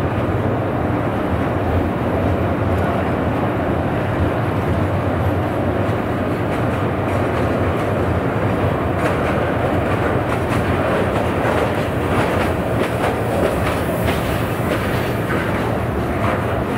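Train rolling past: a steady rumble of steel wheels on rail, with clickety-clack over the rail joints that becomes sharper and more frequent in the second half.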